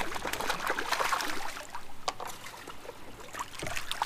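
A hooked fish splashing and thrashing at the water's surface beside a kayak. The splashing is heaviest in the first two seconds, eases off, then picks up again near the end as the fish is scooped into a landing net.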